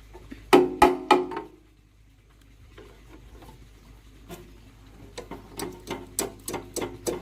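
Sharp knocks with a short ring: three hard strikes about a second in, then a quicker, irregular run of lighter taps near the end.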